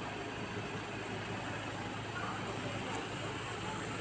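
Ford Ranger 2.2 diesel engine running steadily, an even low hum with no change in speed.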